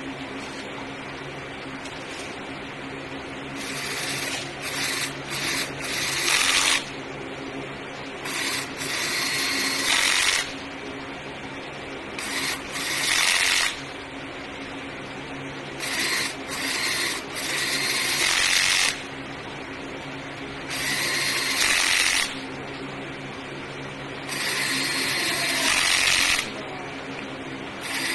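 Power driver fastening the copper connection plates onto lithium battery cell terminals, running in about seven short bursts of one to three seconds each, a few seconds apart.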